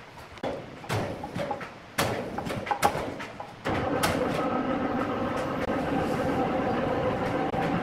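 A few scattered knocks from the heavy wooden slab and its wire-rope slings being handled. About four seconds in, an electric hoist starts and runs steadily as it lifts the slab.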